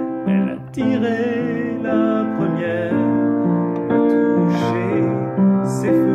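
Upright piano playing an instrumental passage of a pop ballad, chords under a melody. From about a second in to about three seconds a wavering held line sounds over the piano.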